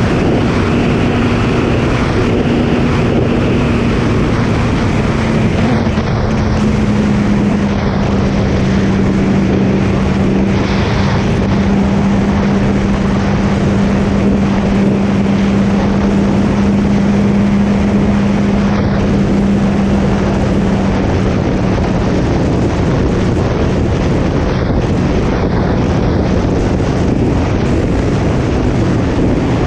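Suzuki Hayabusa inline-four engine at a steady cruise, its drone dropping slightly in pitch about six seconds in and then holding, under heavy wind noise on the microphone.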